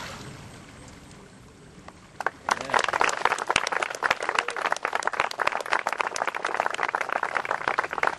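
Crowd of onlookers applauding: dense clapping that starts about two seconds in and keeps going, after faint sloshing of water as the newly baptized woman is raised from the water.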